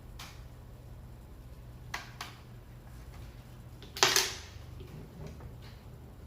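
Light clicks, then one louder clack about four seconds in, as a screw bit adapter is fitted onto a 12V impact wrench by hand. The wrench motor does not run.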